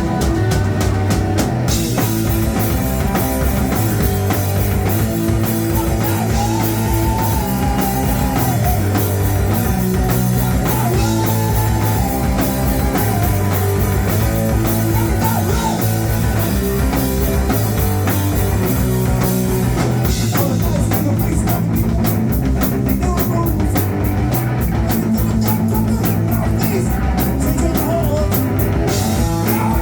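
Rock band playing live and loud, with guitar, bass and drum kit driving a steady beat.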